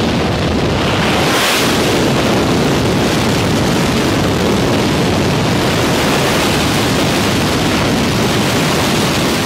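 Steady rushing wind and aircraft engine noise through the open door of a skydiving jump plane at altitude, buffeting the microphone, with a brief brighter gust about a second and a half in.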